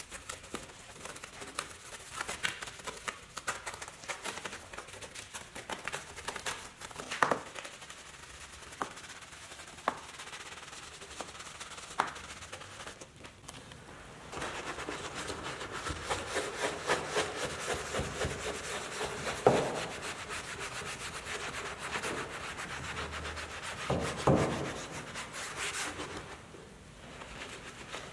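A very soft detailing brush scrubbing through soapy foam over a chrome grille and emblem, then along the windshield cowl: quick, scratchy strokes with a few sharp taps. The scrubbing gets denser and louder about halfway through.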